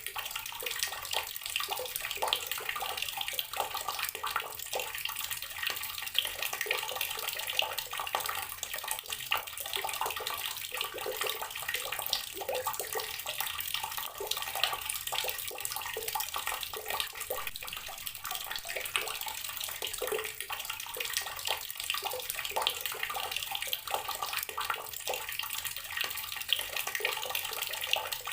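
Water from a tap pouring steadily into a container of water, a continuous splashing and burbling.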